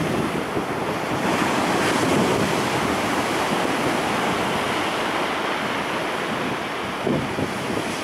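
Storm surf breaking on a pebble beach: a steady rush of waves with swells and washes, and wind rumbling on the microphone in gusts, most plainly near the end.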